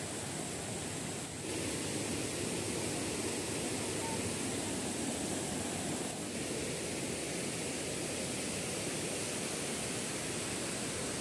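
Steady rushing of water over the rocks of a jungle stream's rapids, an even hiss without any rhythm. It grows a little louder about a second and a half in.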